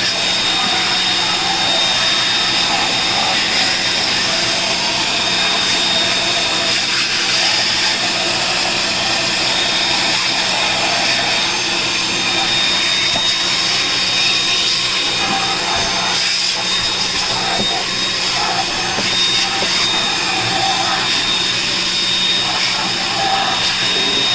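Small electric motor running steadily and loudly without a break, a constant whirring hiss with a steady hum and a thin high whine.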